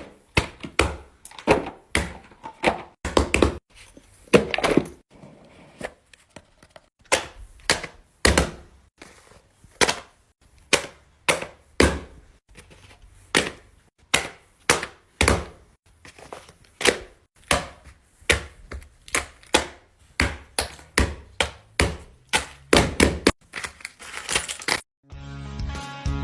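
Push-pop fidget toy being popped, one sharp pop after another at an uneven pace of about one or two a second. Guitar music starts near the end.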